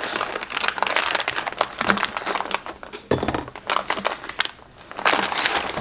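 Clear plastic wrap crinkling as it is cut open and peeled off a plastic food tray, in dense crackles that ease for a moment about four and a half seconds in.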